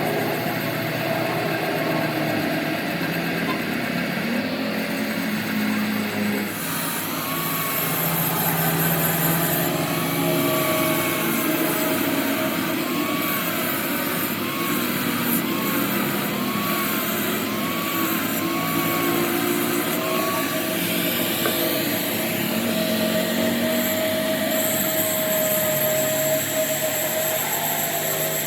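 A machine running steadily, with a fainter tone wavering up and down for several seconds in the middle.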